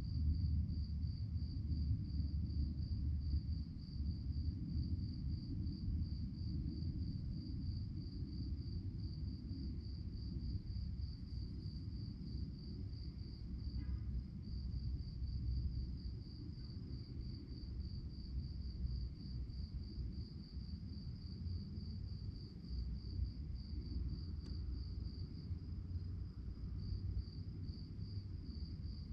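Crickets chirping at night in a steady, evenly pulsed high trill, a few chirps a second, over a low rumbling background.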